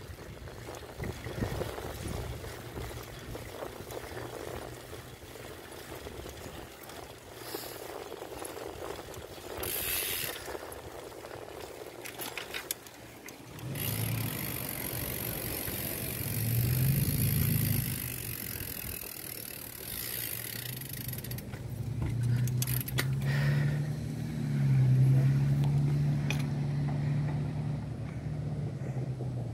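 A bicycle being ridden, with rattling and rough noise across the microphone as it moves over the pavement. About halfway through, a low hum begins that wavers up and down in pitch and lasts to the end.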